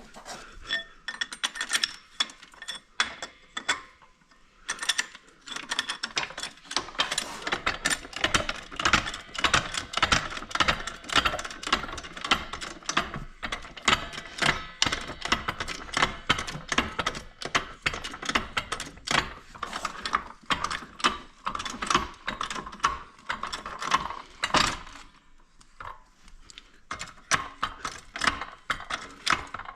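Rapid metallic ratcheting clicks, sparse at first, then a dense fast run from about five to twenty-five seconds in, and a few more near the end.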